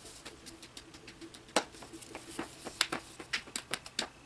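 Light, irregular tapping and clicking on a Hatchimal's hard plastic toy egg shell, several taps a second, one louder knock about a second and a half in.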